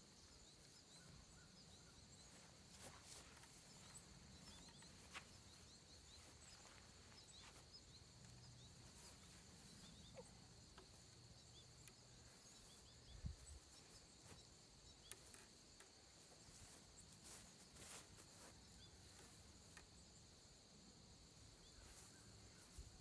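Near silence with a faint, steady high-pitched insect chorus and a few faint knocks scattered through.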